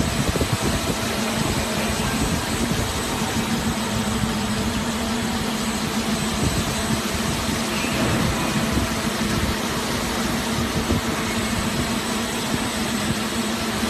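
MJ ZSFQ automatic slitting and rewinding machine running: rollers and rewind shafts turning at a steady speed, giving an even mechanical hum with a thin high whine over it.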